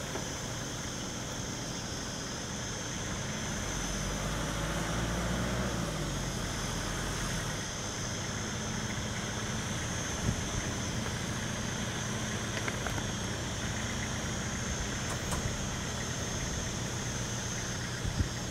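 Vehicle engines idling. About four seconds in, one engine rises in pitch and settles back down by about seven seconds in.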